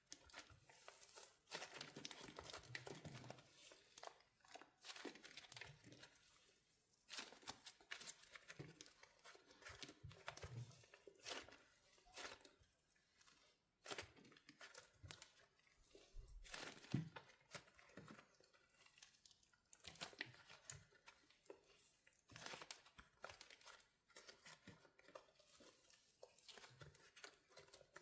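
Wax coating crackling and crinkling as it is cracked on a soft soap squishy: irregular clusters of small sharp snaps with short pauses between them.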